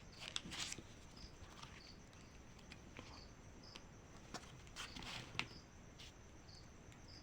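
Faint cricket chirping: short high chirps about once a second, with a few soft clicks and rustles, the sharpest about five seconds in.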